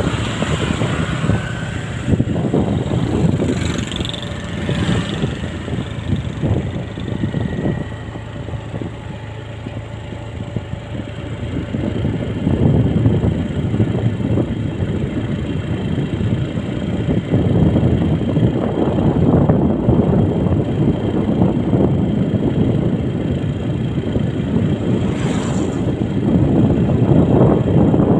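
Wind rushing and buffeting over the microphone of a moving vehicle, a rough, uneven rumble with an engine running underneath. A motorbike passes close by right at the start.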